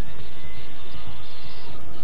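Sea Dart missile launcher being readied: a rising whoosh right at the start, then a steady mechanical rumble and hiss, with dramatic music underneath.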